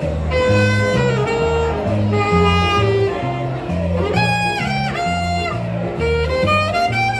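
Jazz music: a saxophone plays a melody of held and sliding notes over a bass line that steps from note to note at an even pace.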